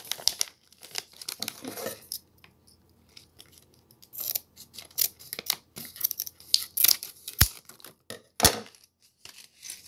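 Crinkling and rustling of a plastic Mega Bloks blind-pack bag being handled and opened. Near the end come two sharp clicks about a second apart.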